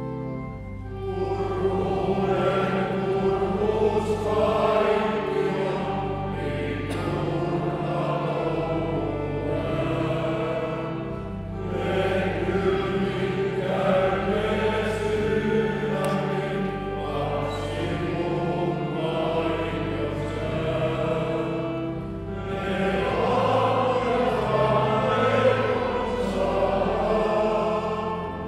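Men's choir singing a Christmas carol in several voice parts, in long phrases with brief breaks between them.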